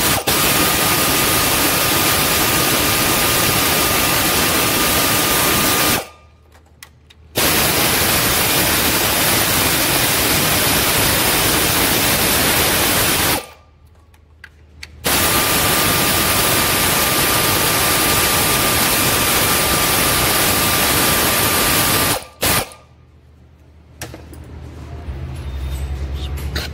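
Air ratchet running in three long runs of about six seconds each, with short pauses between, as it undoes the valve (tappet) cover bolts. It gives a loud, steady hiss with a faint whine.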